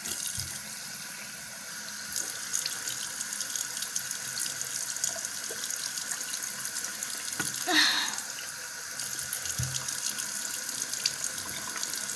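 Bathroom sink tap turned on and running steadily, water pouring into the basin, with splashing as water is cupped to the face. A brief louder sound comes about eight seconds in.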